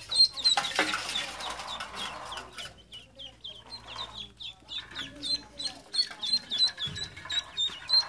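Ducklings peeping: short, high-pitched peeps, about three or four a second, without a break. About half a second in, a two-second rustle of handling as a duckling is scooped up by hand.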